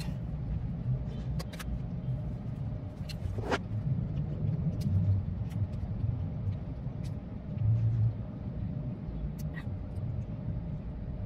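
Steady low rumble of a car's idling engine heard from inside the cabin, with a few short clicks and taps of eating and handling a plastic cup.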